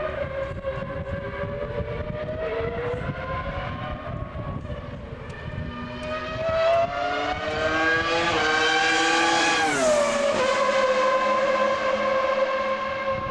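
Formula One car engine at high revs, its pitch rising and falling with the throttle and gear changes. It climbs for several seconds, drops quickly about ten seconds in, then holds a steady high note.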